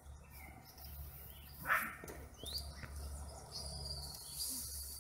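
Faint outdoor background: a few short, high rising chirps and, over the last second and a half, a thin steady high whine, over a low rumble.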